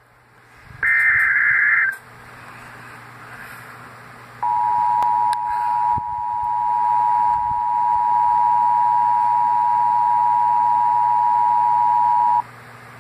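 Emergency Alert System signal for an extreme wind warning. It opens with a short, harsh buzz of digital header data. About four seconds in comes the two-tone attention signal, a steady, loud, discordant tone held for about eight seconds before cutting off.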